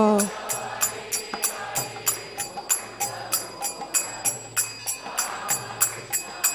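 Instrumental break in a devotional kirtan: small brass hand cymbals (kartals) strike a steady beat about three times a second over softer drum and accompaniment, just as the singing voice stops.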